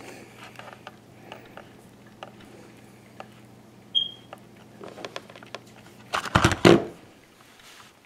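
Hand soldering at a workbench: small clicks and taps of the soldering iron and solder wire being handled over a low steady hum, with a brief high hiss about four seconds in as the iron tip meets the solder on the wire. A little after six seconds comes a loud clatter of handling.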